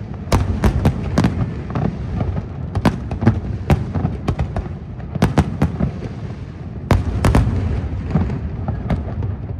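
Fireworks display going off: sharp bangs come in quick irregular clusters every second or two, over a continuous low rumble of echoing explosions.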